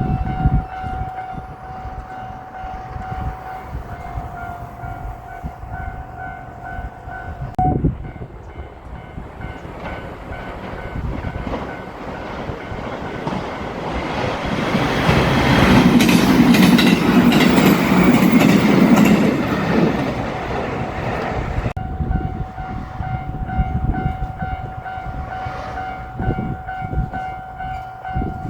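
Japanese level-crossing warning bell ringing with a steady repeating tone; it breaks off about a quarter of the way in and comes back near the end. In between, a JR Shikoku 7200-series and 7000-series electric train passes, building to a loud rush with wheels clattering over the rails and cutting off sharply as the last car clears.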